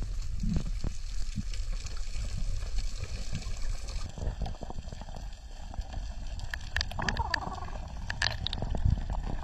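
Underwater ambience: a steady low rumble of moving water with gurgling. Sharp clicks and bubbling cluster in the last third.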